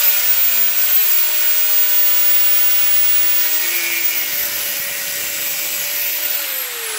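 Angle grinder with a cut-off wheel running at a steady high whine while grinding through a steel roll pin in a differential carrier. Near the end it is switched off and winds down with a falling pitch.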